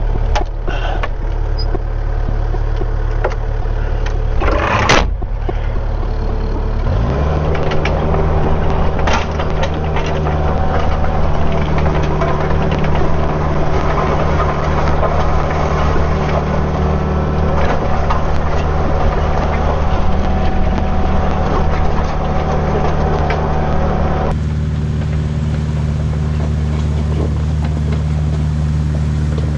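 Kubota U55-4 mini excavator's diesel engine running. It rises in pitch about seven seconds in and then holds steady, with a sharp knock about five seconds in.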